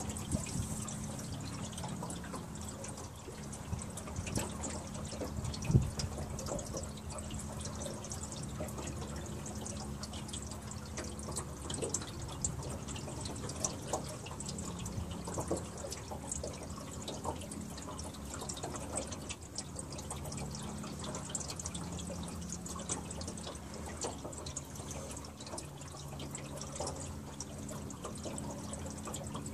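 River water splashing and trickling with many small drips, over a low steady hum.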